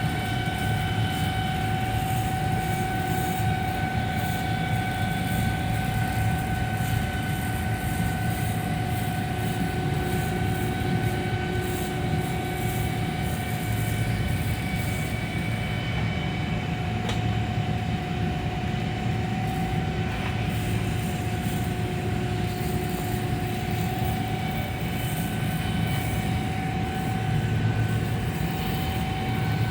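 Welding machine and arc running steadily: a constant low hum and hiss with a steady high-pitched whine over it, unbroken throughout.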